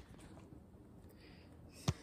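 Faint room noise with one short, sharp knock near the end.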